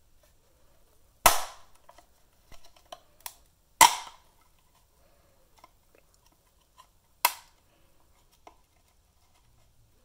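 Plastic snap-fit tabs of a UE Roll speaker's casing clicking loose as the two halves are pried apart with a butter knife: three loud sharp snaps, about one, four and seven seconds in, with smaller clicks between.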